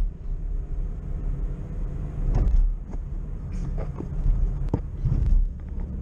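Car cabin noise while driving: a steady low engine and road rumble, with a few sharp knocks and rubs from the camera being handled and set in place.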